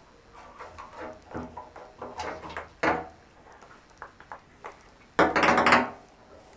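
Ping pong ball being batted around a bathtub: scattered light clicks and taps of the ball on the tub over the first few seconds, then a loud, fast rattle of quick bounces for about half a second near the end.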